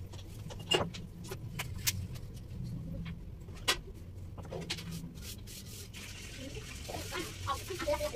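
Scattered light clicks and taps of items being handled while kitchen shelves are wiped down with a cloth, over a steady low hum. A soft hiss comes in near the end.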